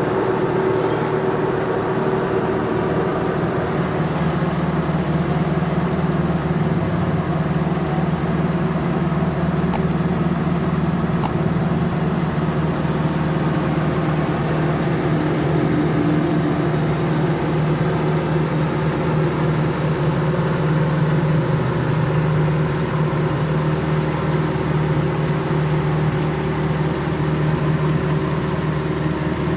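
1990 Toyota Corolla AE92's 4A-F inline-four engine idling steadily, with an even, unchanging note.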